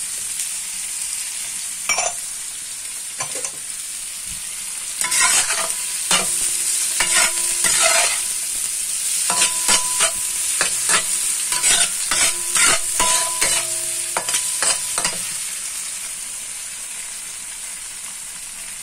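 Tofu cubes, garlic and scallions sizzling in oil in a honeycomb-textured wok, with a spatula scraping and clacking against the pan over and over from about five to fifteen seconds in, some strokes making the wok ring briefly. The sizzle eases off near the end.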